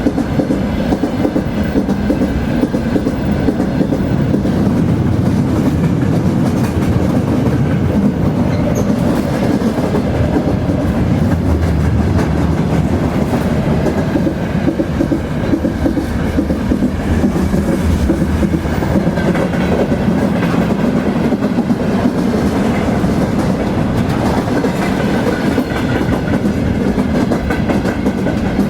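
Train rolling along the track: a steady low rumble with faint, irregular clicks of the wheels running on the rails.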